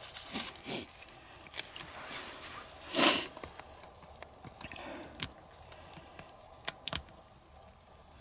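Hand pump on a gear-oil bottle being worked to push new gear lube through a hose into an outboard's lower unit: irregular soft clicks and squelching strokes, with one louder rushing noise about three seconds in and a few sharp ticks later.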